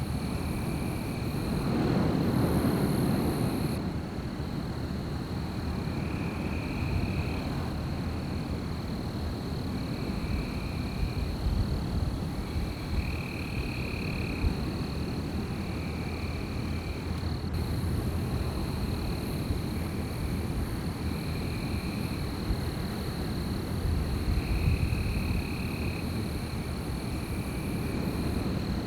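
Night forest ambience: wind rushing through the trees, swelling about two seconds in, under a steady high-pitched drone. Short high trilling calls come back every couple of seconds.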